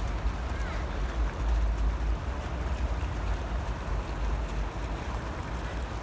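Wind buffeting the microphone, a low rumble that swells and drops, over a steady hiss of outdoor city background noise.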